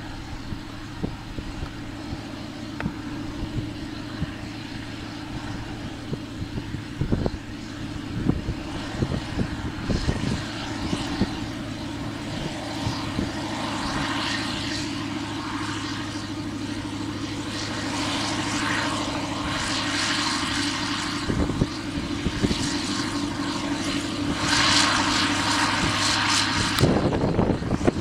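Kirovets K-701M articulated tractor's YaMZ V8 diesel running steadily under load as it pulls a heavy cultivator. In the second half a hissing crackle sits over the engine and the whole sound grows louder.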